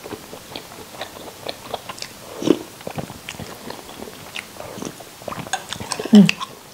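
Close mouth sounds of someone sipping boat-noodle soup broth from a spoon and chewing: many small wet clicks and lip smacks, with a stronger slurp about two and a half seconds in. A brief hummed 'mm' comes near the end.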